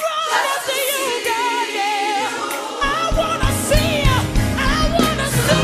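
Gospel music: voices singing long wavering lines with vibrato, and a deep, steady beat comes in about halfway through.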